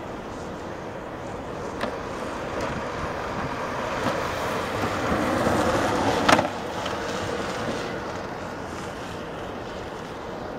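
A fully faired streamlined bicycle racing past close by: the rushing tyre and air noise swells to a peak a little past halfway, with a brief sharp click at the loudest point, then fades away.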